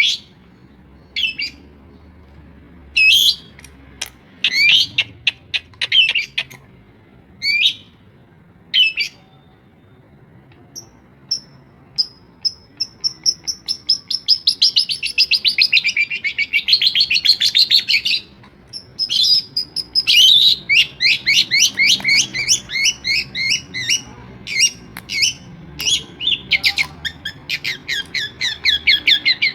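Long-tailed shrike (pentet) singing a varied mimicking song: short separate calls at first, then from about twelve seconds in a long fast trill, followed by rapid runs of repeated notes.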